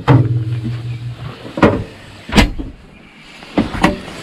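A knock, a brief steady hum, then several sharp knocks and clicks of small doors and latches being shut, as of a camper van's fridge, freezer and cabinet doors.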